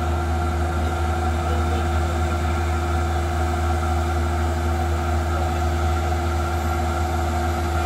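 Kubota rice combine harvester running steadily at constant speed, a deep even engine hum with a higher drone over it.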